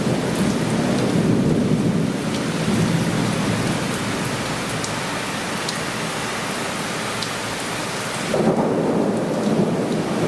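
Heavy downpour of sudden torrential rain, with thunder rumbling under it and scattered drops ticking close by. The rumble eases in the middle and swells again suddenly about eight seconds in.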